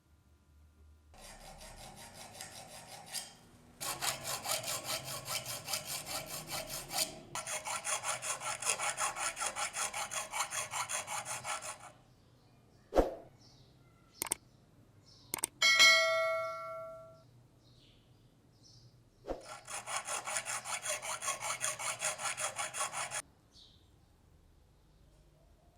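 Rhythmic back-and-forth rasping strokes of a hand file or abrasive worked over a rusty knife, about four to five strokes a second, in several runs of a few seconds each. In a pause there are a few sharp clicks and a short metallic ring that fades out.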